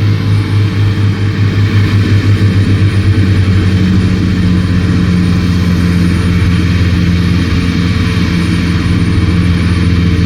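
Heavy diesel engine of earthmoving machinery running loud. Its low throb pulses for the first few seconds, then evens out into a steady drone.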